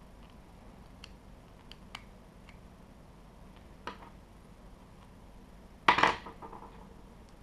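Scattered light clicks and taps of small parts and tools being handled during printer-kit assembly, with one louder clatter of several quick knocks about six seconds in.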